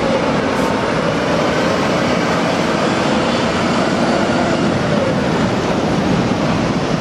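City street traffic with red double-decker buses driving past: a steady, loud rush of engine and tyre noise.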